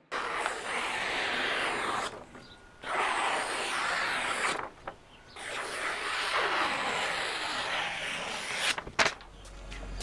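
Finished EDC knife blade slicing through a sheet of printer paper in three long hissing passes, a test of the edge's sharpness, with a few sharp clicks near the end.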